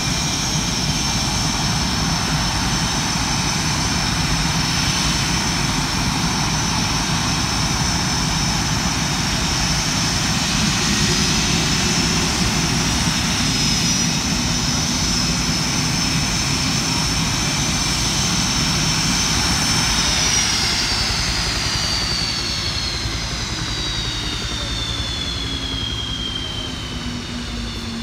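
Several F/A-18 Hornet jet engines running at idle on the ramp, a loud rumble under a steady high-pitched whine. About twenty seconds in, the whine starts sliding down in pitch and the sound grows quieter as the engines spool down at shutdown.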